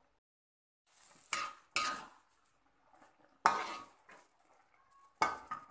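A spatula clanking and scraping against a wok while stir-frying noodles: five short, unevenly spaced clanks, each with a brief ring.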